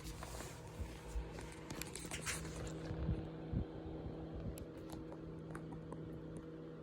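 Small RadioShack cooling fan running at speed with a steady motor hum, its airflow blowing onto the microphone with a few low buffeting thumps; the airy hiss drops off about three seconds in.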